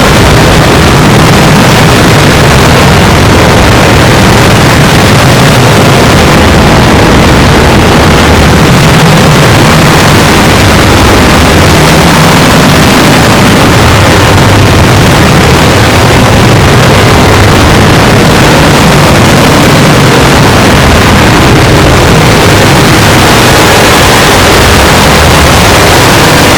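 Very loud, heavily clipped, distorted noise that keeps going without a break, from a sound clip pushed through stacked audio effects.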